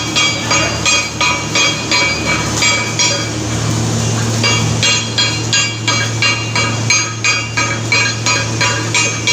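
Hammer striking steel in a steady rhythm, about two to three ringing metallic clinks a second, over a steady low hum.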